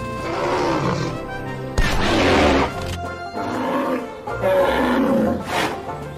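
A large animal calling four times, each call a rough, wavering growl, over steady background music.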